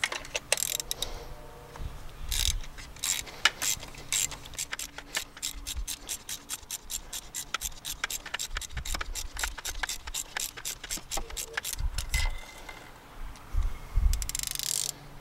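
Socket ratchet clicking in a steady run of about five clicks a second, turning a spark plug in the BMW N54 inline-six's cylinder head. There are a few knocks and rustles at the start and near the end.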